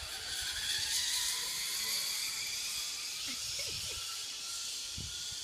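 Steady high whirring hiss of a jump tower's descender paying out line as a jumper drops, loudest about a second in and slowly easing.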